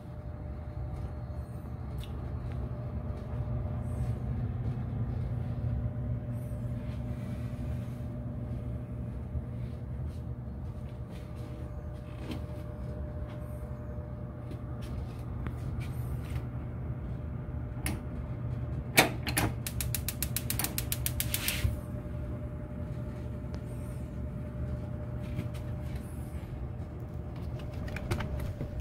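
Steady low hum from a gas hob heating a wok of frying oil. About two-thirds of the way through, a quick, even run of sharp clicks lasts two or three seconds.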